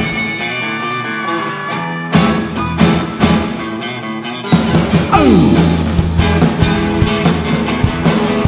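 Live blues-rock band playing electric guitars, bass and drums: a ringing chord and a few sharp band hits, then the full band kicks in about four and a half seconds in with a steady driving beat. Just after the band comes in, one note slides down in pitch.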